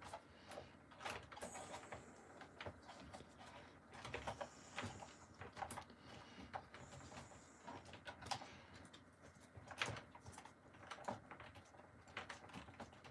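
Gloved hands handling a boxed toy figure and its cardboard packaging while fitting wire twist ties: faint rustling with scattered small clicks and taps, one a little louder near the end.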